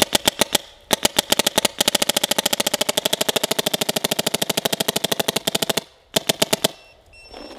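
Planet Eclipse Etha 2 paintball marker firing fast strings of shots: short bursts at first, then a long even string of roughly a dozen shots a second that stops about six seconds in, with a few last shots after. The marker is iced over yet keeps cycling with no bolt stick or drop-off, and it sounds louder, which the shooter puts down to ice filling the barrel porting.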